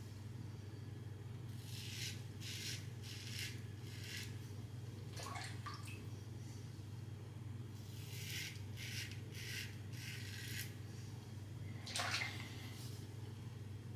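Mühle R89 safety razor scraping through lathered stubble in short, faint strokes: a run of four or so strokes about two seconds in and another around eight seconds in. About twelve seconds in comes a brief louder splash of water as the razor is rinsed.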